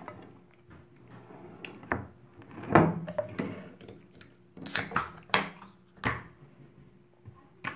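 Close-miked eating and table-handling noises: chewing, with a scattering of knocks and clicks as food and a soda can are handled. The loudest knock comes a little under three seconds in, and a cluster of sharp clicks follows between about four and a half and six seconds in.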